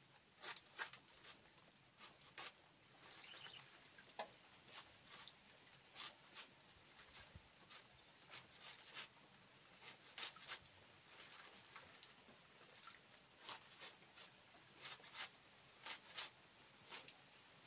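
Kitchen knife slicing mustard greens held in the hand, the blade cutting through the crisp leaves against the thumb: faint, sharp cutting snips, about one or two a second.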